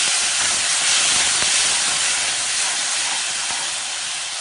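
Wet tomato and cashew paste sizzling loudly in hot oil as it is stirred in the pan. The hiss eases a little toward the end.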